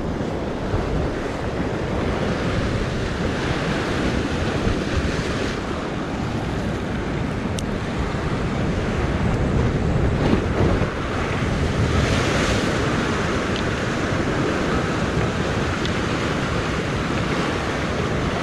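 Ocean surf breaking and washing over rocks below, with wind buffeting the microphone. The wash rises and falls in surges, with one louder crash about twelve seconds in.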